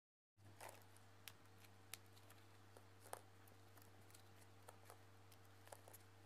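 Faint steady low hum with scattered light clicks and ticks from gloved hands plucking the stems off green chillies on a plastic cutting board.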